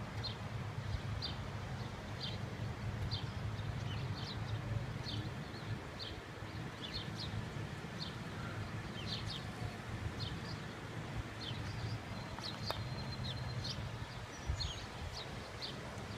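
Small birds chirping repeatedly, short high chirps about once or twice a second, over a steady low rumble.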